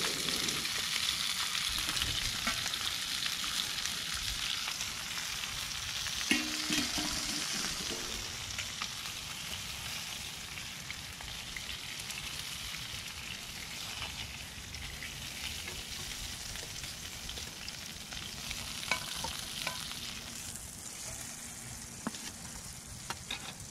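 Half a trout frying in a pan: a steady sizzle that slowly dies down, with a few light clicks.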